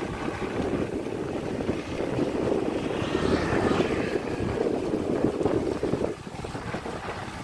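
Tractor engine running steadily under load while pulling a tiller through dry soil; it drops briefly about six seconds in.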